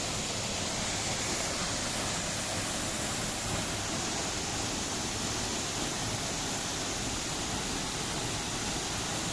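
Waterfall roaring steadily: the even rush of falling water.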